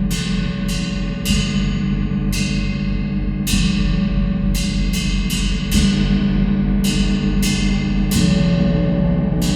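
Gong played with a mallet: about a dozen sharp, uneven strikes, each ringing bright and fading, over a steady low humming drone.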